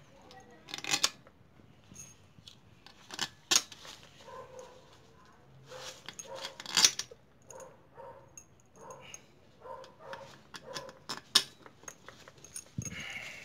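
Steel bolts clicking and clinking against the aluminium crankcase of a 163FML 200 cc motorcycle engine as they are set into their holes by hand, in separate sharp clicks a second or more apart. A dog barks faintly in the background with short repeated calls.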